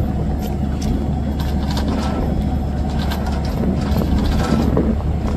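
Heavy vehicle's diesel engine running steadily at a low rumble, with scattered light clicks and knocks over it.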